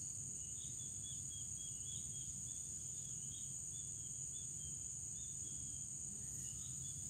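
Steady high-pitched drone of insects, with a quick series of short chirps over the first few seconds.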